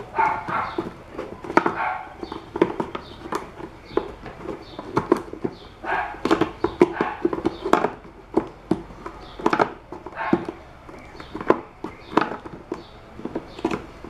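Irregular clicks and knocks of a screwdriver levering and tapping at the plastic drive coupling of a Philco blender base, working to loosen its left-hand thread while the shaft is held in locking pliers.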